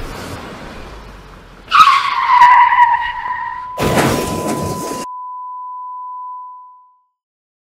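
A car running with low cabin rumble, then a sudden loud tyre screech, and about two seconds later a crash that cuts off suddenly. A steady high ringing tone starts with the screech, outlasts the crash and fades away.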